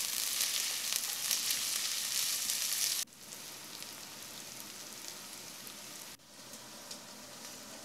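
Chopped red onions and whole spices frying in ghee in an enamelled cast-iron pot, a steady sizzle. The sizzle drops abruptly to a quieter level about three seconds in, with a brief break near six seconds.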